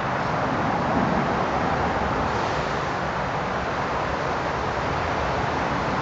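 Steady outdoor background noise: an even rumble and hiss with no distinct events.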